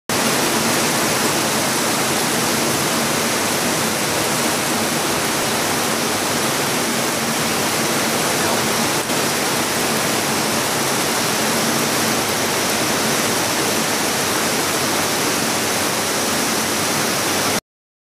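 Heavy rain falling steadily on rainforest canopy, a dense, even hiss that cuts off suddenly near the end.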